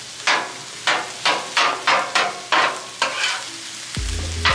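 Flat steel griddle scraper chopping cooked chicken on a Blackstone griddle's hot steel top: a run of sharp strikes, about three a second, over the sizzle of frying meat. Background music comes in near the end.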